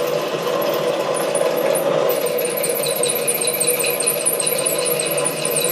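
SC2 mini lathe running with an HSS parting tool cutting into 316 stainless steel: a steady motor and spindle hum. About two seconds in, a high, scratchy chatter from the tool joins it, as the parting tool struggles in the stainless.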